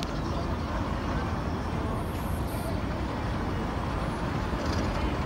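Steady street traffic noise, a continuous low rumble of passing vehicles with no distinct events.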